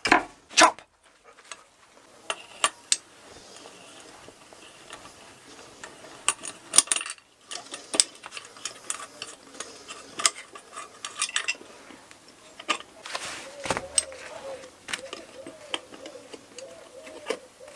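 Steel spanner and bolts clinking on a turbocharger as the wastegate actuator's two 12 mm bolts are loosened and unscrewed. Two sharp knocks at the start, then many small metallic clicks and rattles.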